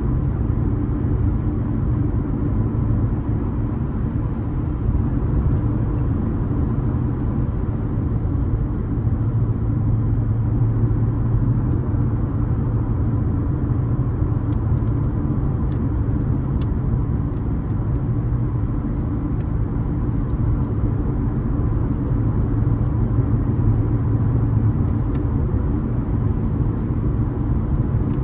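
A car driving steadily along a road: a continuous low rumble of engine and tyre noise that holds level throughout.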